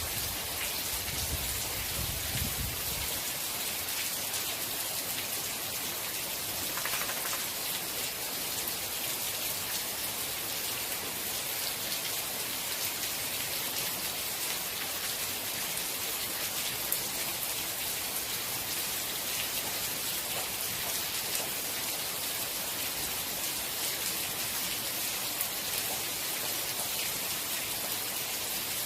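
Steady rain falling, an even hiss with scattered drop ticks; a low rumble fades out in the first three seconds.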